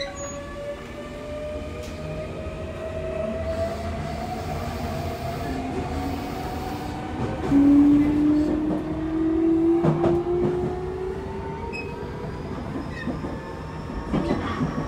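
Hitachi GTO-VVVF inverter and traction motors of a Toei 6300 series train, heard from inside the car while accelerating: a whine of several tones rising steadily in pitch. About halfway a louder, lower tone comes in and rises for a few seconds. A few clicks follow near the end.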